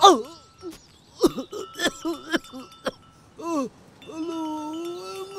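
A person's voice calling out in a few short cries, then one long drawn-out call near the end, over a faint steady high-pitched ringing tone.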